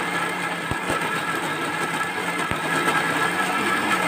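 Electric mixer grinder running, its steel jar grinding soaked rice and dal into dosa batter: a loud, steady whir. It is run in short bursts rather than continuously, since running it all at once heats the motor.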